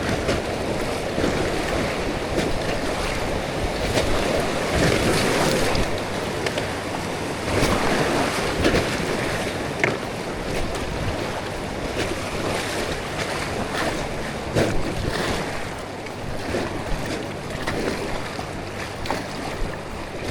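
River water rushing and splashing around a raft, louder for a few seconds near the middle, with a few short sharp splashes and wind buffeting the microphone.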